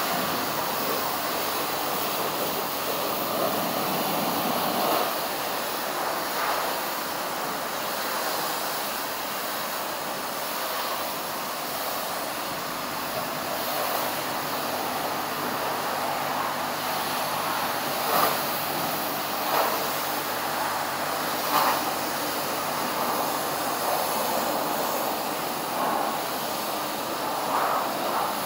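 A self-service car wash's high-pressure wand spraying a steady hissing jet of water against a car's body, rinsing off the foam. The spray is continuous, with a few short louder swells in the second half as the jet moves over the panels.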